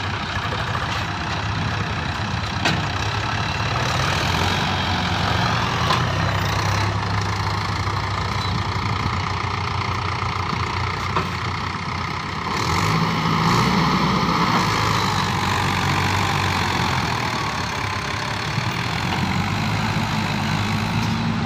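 Swaraj 843 XM tractor's three-cylinder diesel engine running under heavy load, pulling a loaded sand trailer through deep mud. A little past halfway the revs rise and the engine gets louder, then it eases back.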